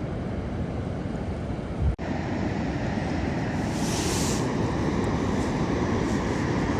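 Ocean surf and wind on the phone's microphone, a steady low noise. There is a thump and a brief break about two seconds in, and a short hiss of water a couple of seconds later.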